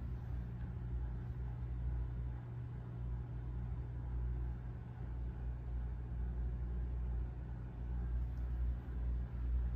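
Steady low hum, constant in level, with no other sound rising above it.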